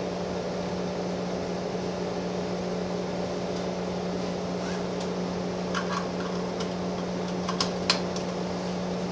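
Gillig Phantom transit bus's diesel engine idling steadily, heard from the driver's seat, with a few sharp clicks about six and eight seconds in.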